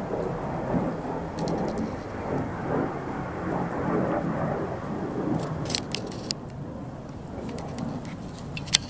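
Wind buffeting the microphone: an uneven rushing rumble, with a few sharp clicks about halfway through and one louder click near the end.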